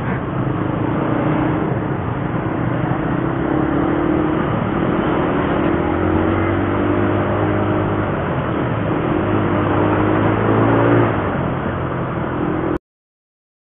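Motorcycle engines running while riding slowly in a group through traffic. The engine pitch rises and falls a little with the throttle, over a steady rush of wind and road noise. The sound cuts out for about a second near the end.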